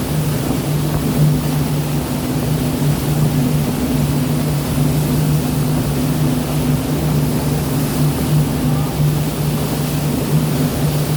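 Boat engine running with a steady low drone over a constant wash of sea noise.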